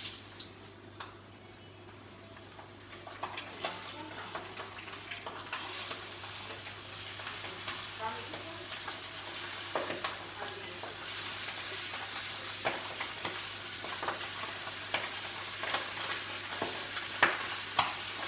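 Floured chicken pieces deep-frying in a pot of hot oil: a steady sizzle that grows louder partway through, with sharp crackles and pops scattered through it, the loudest near the end.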